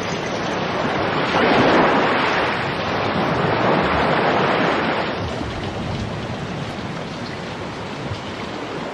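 Storm at sea: a steady rushing noise of wind, waves and rain that swells twice and then slowly fades away near the end.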